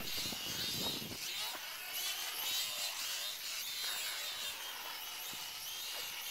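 E-flite 4-Site micro quadcopter's electric motors and propellers whining, the pitch rising and falling as the throttle changes.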